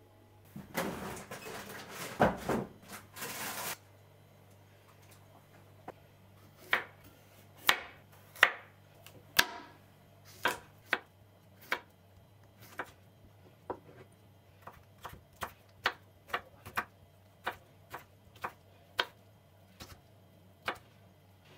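Chef's knife chopping vegetables on a bamboo cutting board: separate sharp knocks of the blade hitting the board at an uneven pace, roughly one or two a second. Near the start there is a few seconds of scraping and rustling noise.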